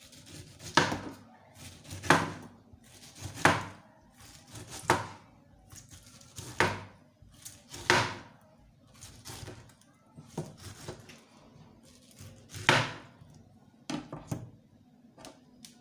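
Kitchen knife chopping peeled pineapple into chunks on a plastic chopping board, the blade knocking sharply against the board about a dozen times at an uneven pace, roughly one cut every second or so.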